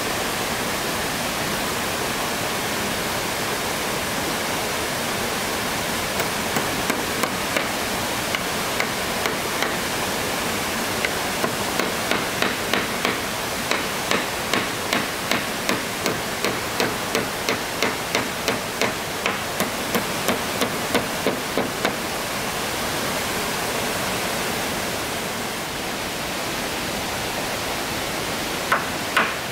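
Hammer blows on the wooden plank roof boards, a long, regular series of knocks at about two a second, over the steady rush of a stream. The hammering stops for a few seconds, then a new run of blows starts near the end.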